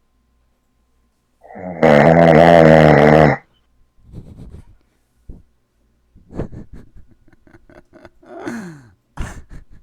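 A man snoring: one long, loud snore about two seconds in, followed by shorter, quieter breathing sounds and a snore that falls in pitch near the end.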